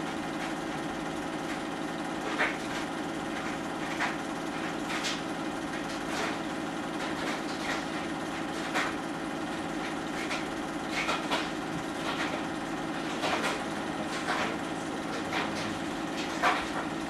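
Film projector running steadily, a constant mechanical hum with irregular sharp clicks every second or two.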